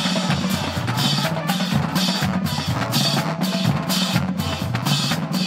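HBCU marching band's drumline of snare drums, bass drums and cymbals playing a cadence, with cymbal crashes on a steady beat about twice a second.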